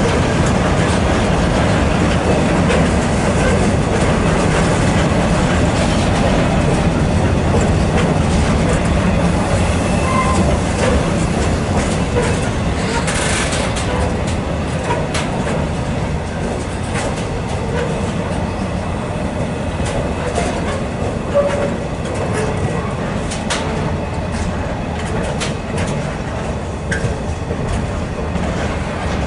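Container freight train's loaded flat wagons rolling past at close range: a steady rumble of steel wheels on the rails, with sharp clicks of wheels over the rail joints becoming more prominent in the second half as the level eases slightly.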